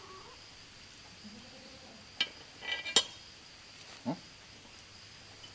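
Steel parts of a Logosol Smart Splitter log splitter clinking as they are handled and fitted: one clink about two seconds in, a quick run of ringing metal clinks around three seconds with the loudest strike, and a duller knock a second later.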